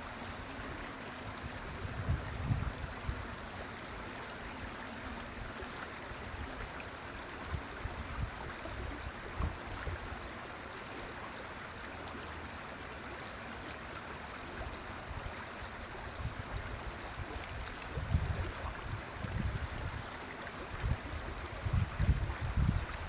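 River water flowing with a steady rushing sound, broken by bouts of low rumble that come and go and are strongest near the end.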